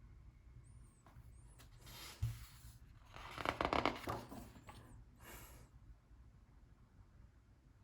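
Paper pages of a book being handled and turned: three short rustles, the loudest from about three to four seconds in.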